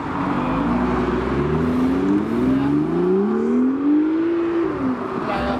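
BMW M2's turbocharged straight-six accelerating hard away through the gears. The engine note climbs three times, dropping briefly at each upshift, then falls away near the end.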